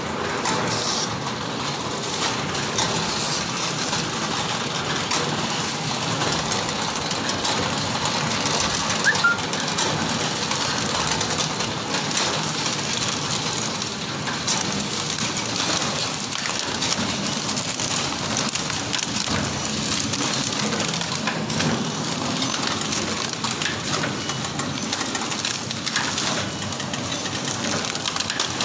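Automatic rusk packing machine running steadily: a continuous mechanical whirr and rattle with many small rapid clicks.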